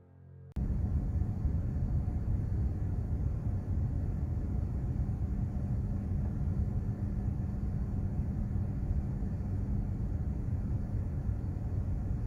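Steady low rumble aboard a container ship under way at sea, wind and ship noise on deck, with a steady hum beneath it; it cuts in abruptly about half a second in.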